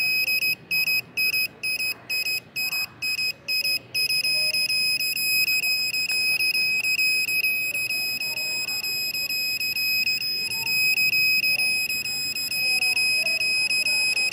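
WS-6933 satellite finder meter sounding its high-pitched signal tone. For the first few seconds it beeps about twice a second, then from about four seconds in it holds one continuous tone, the meter's sign of a strong signal as the dish is aimed at the satellite.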